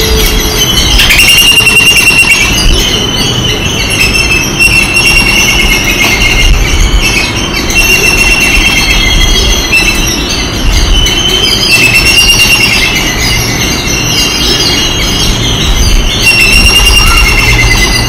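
A dense chorus of birds chirping, with many overlapping high calls and drawn-out, wavering squeals, over a steady low rumble.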